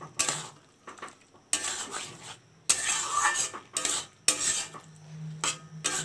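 Metal spatula scraping and stirring a thick vegetable mixture in a metal kadai, in irregular scraping strokes of about a second or less, roughly one a second.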